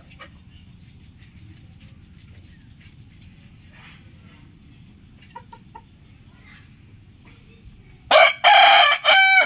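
Rooster crowing once near the end: a short opening note, then long held notes, loud against a quiet background. A few faint short clucks come about midway.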